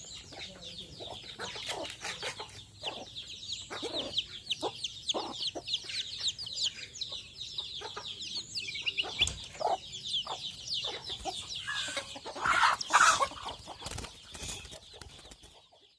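Greater green leafbird (cucak ijo) singing a fast, varied song of rapid sweeping chirps and twitters, in full song. A louder, harsher phrase comes about thirteen seconds in.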